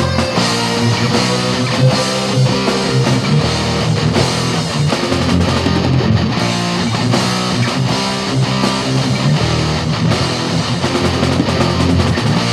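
Loud guitar-driven rock music playing steadily.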